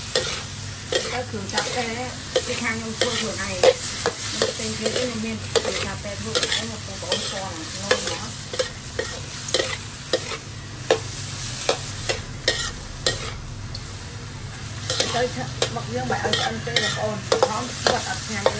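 A spatula scraping and knocking against a wok, with many sharp irregular clacks, while squid rings are stir-fried. The oil sizzles steadily underneath.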